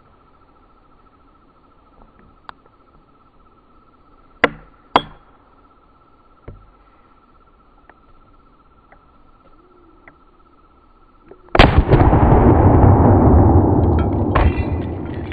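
A single very loud blast about twelve seconds in, followed by a long rolling echo that slowly dies away. Before it, a quiet stretch with a few sharp clicks.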